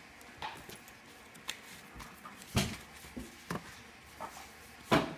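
Scattered sharp taps and slaps, about seven in five seconds with the loudest near the end, from hands working a stack of paper sheets and a glue brush on a workbench while pasting paper.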